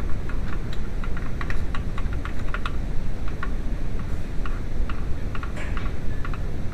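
Quick, irregular light clicks, several a second, over a steady low rumble.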